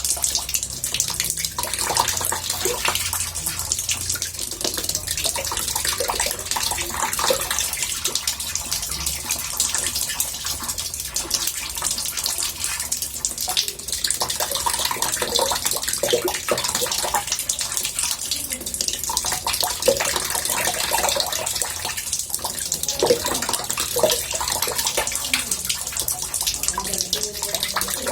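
Water running and splashing into a bathtub: a steady murmuring hiss with small bubbling splashes scattered through it.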